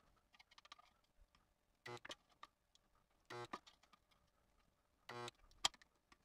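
Chicago Electric 120-volt spot welder buzzing in three short bursts, each about a quarter second, as it fires tack welds on thin sheet-metal corners; each burst is one weld, the transformer humming while current passes through the clamped metal. A sharp click follows each burst, the loudest one near the end.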